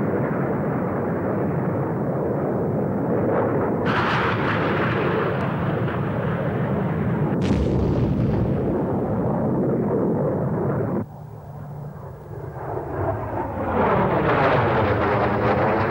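A steady jet roar with two sudden blasts, about four and seven and a half seconds in. It cuts off abruptly about eleven seconds in, and near the end a jet aircraft flies past, its roar swelling and sweeping down and back up in pitch.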